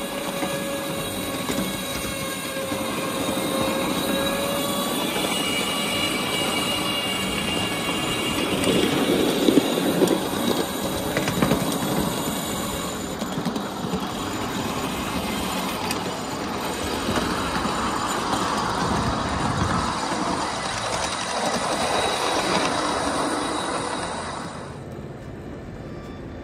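Small ride-on backyard electric train rolling along its track: steel wheels rumbling and clicking over the rails, with thin steady squealing tones on top. A few loud clunks come about nine to ten seconds in, and the sound drops lower shortly before the end.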